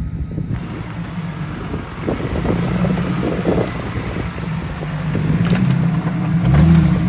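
Off-road 4x4 engine running at crawling speed over a rough trail, with knocks and rattles from the vehicle. The engine revs up and back down near the end.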